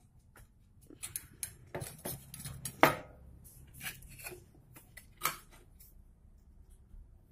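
Irregular light clinks and knocks of small hard objects, likely metal parts or tools, being handled, with two sharper knocks about three and five seconds in.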